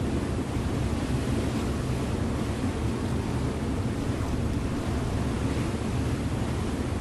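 River motor ship under way: a steady low engine drone mixed with the rush of water along the hull.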